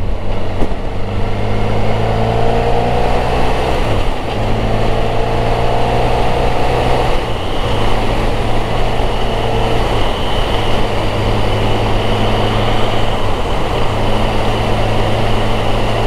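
Motorcycle engine running on the road under heavy wind rush on the microphone; the engine note climbs as the bike gathers speed, with brief dips about four and seven seconds in.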